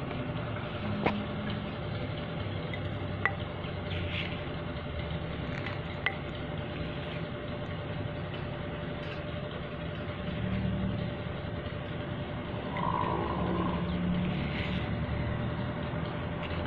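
A small hand trowel scooping soil into a plastic flower pot, with a few sharp knocks about 1, 3 and 6 seconds in, over a steady low hum and hiss.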